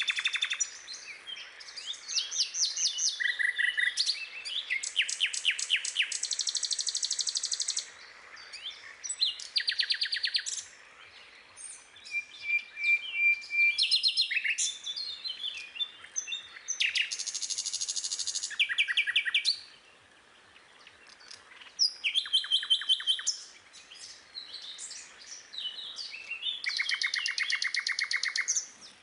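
Songbirds chirping and singing: phrases of rapid repeated notes and trills, each a second or two long, following one another with short pauses.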